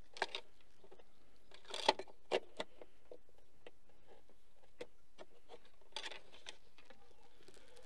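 Engine oil dipstick being drawn out, wiped and pushed back into its tube to check the level after an oil change: a few short scrapes and clicks, the loudest about two seconds in and more about six seconds in.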